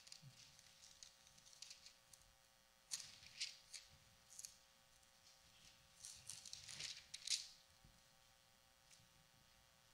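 Faint rustling of thin Bible pages being turned: a few short rustles about three seconds in and a longer run of them around six to seven seconds in.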